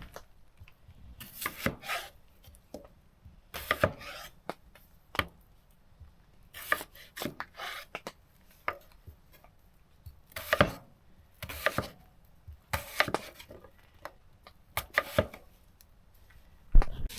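Knife chopping food on a cutting board, in short irregular runs of a few strokes with pauses between.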